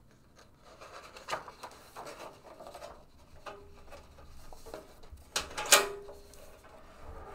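A hardcover picture book being handled: a page turning with paper rustling and scraping, then a couple of sharp knocks about five and a half seconds in as the book is shifted on its stand.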